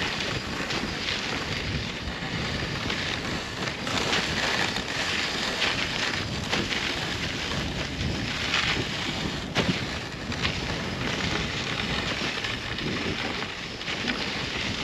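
Wind rushing over the microphone while riding a moving dog sled, a steady noise that swells and eases in gusts.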